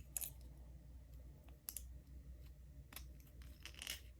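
Faint, scattered clicks and light scraping of small padlock parts being handled, as a follower pushes the core out of the lock body.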